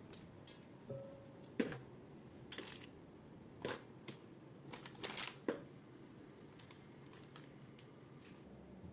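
Scattered light clicks and taps, about a dozen spread irregularly, with a short faint tone about a second in: handling of kitchen items.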